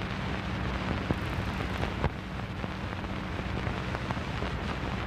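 Background noise of an old soundtrack over a blank lead-in: a steady hiss and low hum, with scattered crackle and a few sharp pops.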